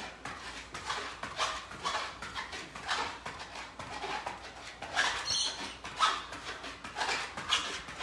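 Quick rhythmic hard breathing and shoes scuffing on an exercise mat from a man doing fast mountain climbers, about two strokes a second.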